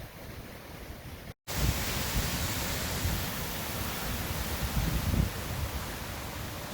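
Hurricane wind and heavy rain, a steady hiss with gusts buffeting the microphone in low rumbles. About a second and a half in, the sound drops out for an instant and comes back louder.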